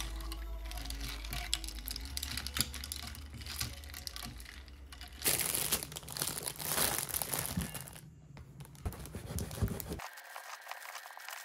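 A metal stirrer clinking against ice in a small enamel cup of iced coffee. About five seconds in comes the loudest part, a plastic bread bag crinkling. Near the end a serrated bread knife saws through a crusty garlic baguette.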